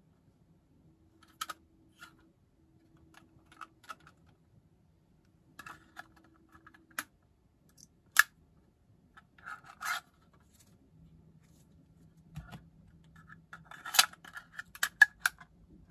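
Hands handling a 3D-printed plastic card case and its thin flat elastic band: scattered scrapes and rubbing of plastic and cards, with sharp clicks and snaps as the band is pulled out and hooked into the notch, the sharpest about halfway through and a quick run of them near the end.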